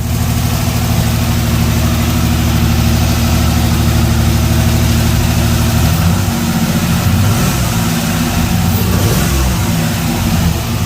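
1994 Pontiac Firebird's 3.4 L pushrod V6 running after a repair: steady at first, then uneven from about six seconds in as the engine speed wavers. It has a slight lifter tap that the owner calls normal for this engine, and a rasp to it.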